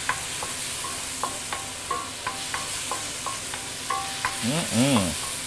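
Tomato and aromatic paste with whole spices sizzling in oil in a stainless steel wok, a wooden spatula stirring and tapping against the metal several times a second, each tap ringing briefly. A short pitched sound rises and falls near the end.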